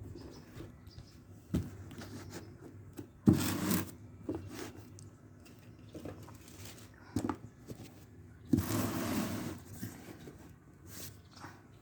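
Packaging being handled during an unboxing: scattered clicks and knocks, with two longer rustling scrapes, one about three seconds in and a longer one near nine seconds.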